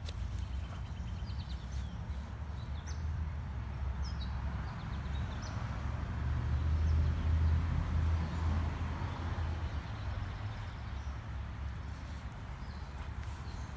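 Outdoor background with a low rumble that swells in the middle and eases off again, and a few faint high chirps in the first few seconds.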